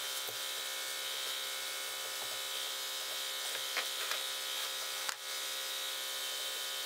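Steady machine hum with many even overtones, holding one level throughout, with a few faint taps and a brief dip about five seconds in, while an abrasive pad scuffs a painted cabinet door by hand.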